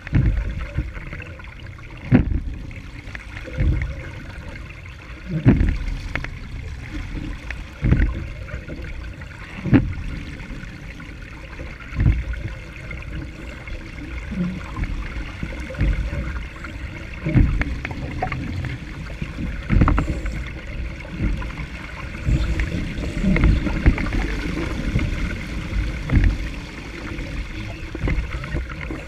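Laser dinghy's hull slapping through choppy waves, with water rushing and splashing alongside and a hard knock about every two seconds.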